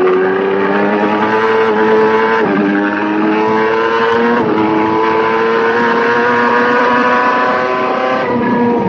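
Racing motorcycle engine heard onboard under hard acceleration, its pitch climbing steadily with two brief dips about two and a half and four and a half seconds in as it shifts up a gear.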